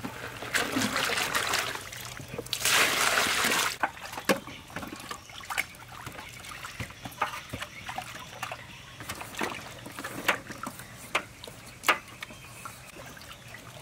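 Vegetables being swished and splashed by hand in a basin of water, in two loud bursts within the first four seconds. After that, scattered light knocks and clicks as the washed vegetables are handled in a woven bamboo basket.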